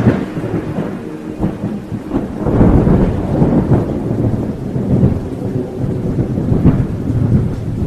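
Thunderstorm: thunder rumbling over steady rain, swelling loudest a few seconds in and again near the end.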